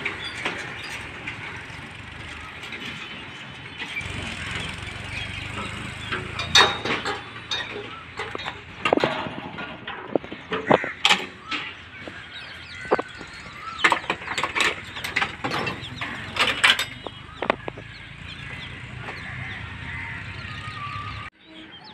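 Road traffic of motorbikes and cars, engines running under a steady rumble, with a dense run of short, sharp horn honks through the middle. The sound cuts off abruptly near the end.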